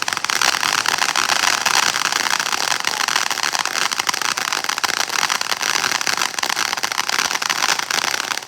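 A ground firework fountain spraying, a loud steady hiss packed with fast crackling that holds evenly and stops near the end.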